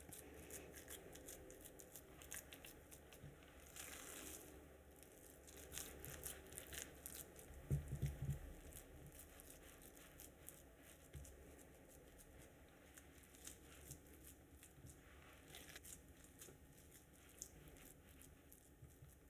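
Faint sounds of hands pressing and smoothing raw ground-beef meatloaf mixture into a cast iron loaf pan, with scattered small clicks and a soft low bump about eight seconds in.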